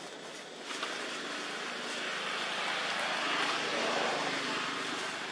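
A motor vehicle passing at a distance: its hiss and engine hum swell over a couple of seconds and then ease off. There is some rustling in dry leaf litter early on.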